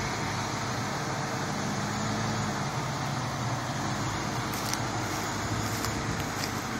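Steady low mechanical hum, like a vehicle engine running, with a few faint clicks in the second half.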